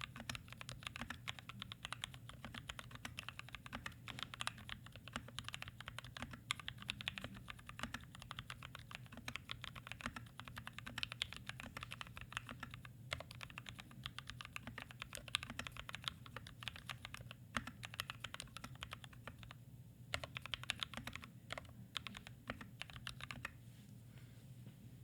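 Fast continuous typing on a custom 60% mechanical keyboard in a walnut case with a brass plate, case foam, lubed and filmed Gateron Black Ink V2 switches and PBT keycaps: a dense run of keystrokes with a couple of short pauses, stopping shortly before the end.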